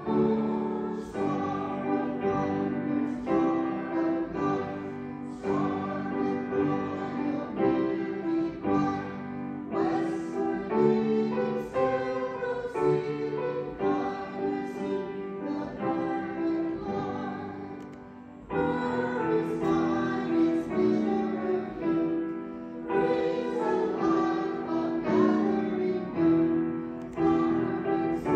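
A hymn sung with piano accompaniment, in slow held notes, with a short break about eighteen seconds in before the next phrase begins.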